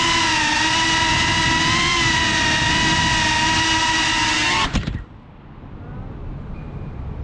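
Onboard sound of a GEPRC Cinelog 35 FPV quadcopter: the brushless motors and propellers whine steadily, the pitch wavering a little. About five seconds in there are a few knocks as the drone comes down on the paving and the motors cut out, leaving a faint background hum.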